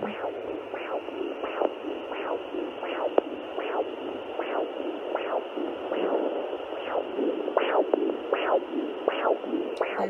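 Sonoline B 3 MHz pocket fetal Doppler with the volume up, picking up the mother's own pulse rather than the baby's heartbeat: a regular whooshing beat, a little faster than once a second, over a steady hiss.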